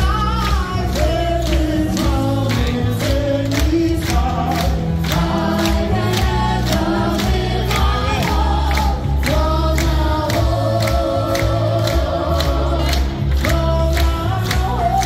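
Upbeat music with a group of voices singing together over a strong bass and a steady beat.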